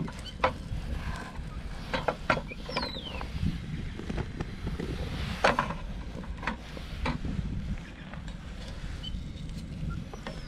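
Whole fish frying in a nonstick frying pan, with a spatula clicking and scraping against the pan several times as the fish are moved. A low wind rumble on the microphone runs underneath.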